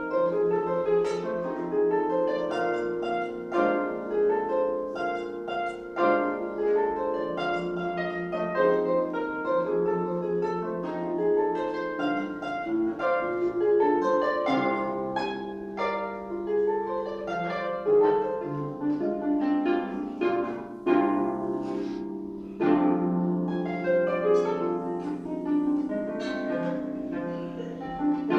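Solo harp playing a blues piece: quick runs of plucked notes and chords that ring on over held low bass notes.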